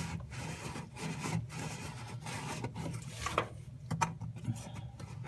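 A cloth rag rubbing and wiping in repeated strokes against the plastic drain-filter housing of a front-load washer, cleaning sand off the seal face. The rubbing stops about three and a half seconds in, leaving a few light clicks.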